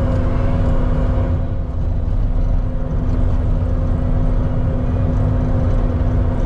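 Engine of a heavy work vehicle running steadily, a low rumble with a constant hum.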